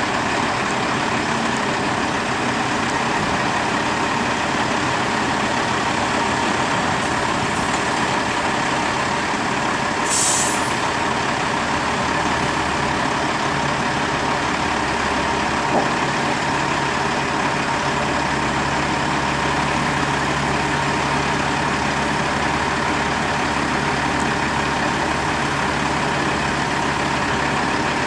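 Heavy diesel truck engine running steadily, its low note growing a little heavier from about halfway through. A short hiss of air breaks in about a third of the way through, and there is a single sharp click a little past the middle.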